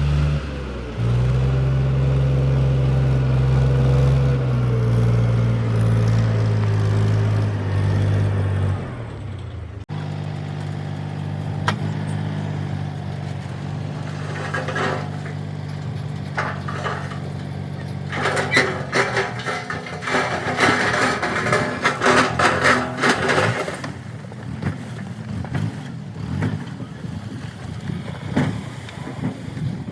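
Diesel engines of a backhoe loader and tractor running, the note shifting in pitch in the first part, then cutting abruptly to another steady engine about a third of the way in. Dense clattering and knocking from the working machinery come in over the engine in the second half.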